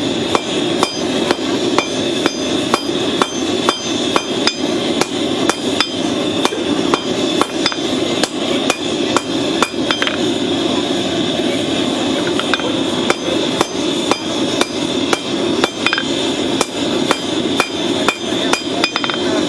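Hand hammer striking red-hot steel from a horseshoe rasp on an anvil, forging it into a blade, in a steady run of blows about two to three a second with a short metallic ring after each. A steady rushing noise runs underneath.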